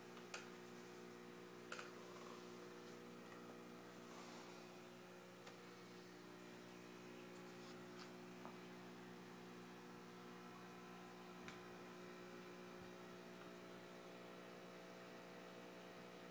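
Near silence: a low, steady electrical hum, with a few faint clicks.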